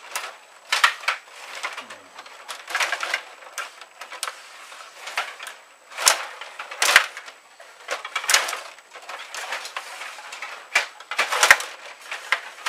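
Rod hockey table game in play: plastic player figures spun and slid on their rods, clacking against the puck and the table in irregular knocks and rattles.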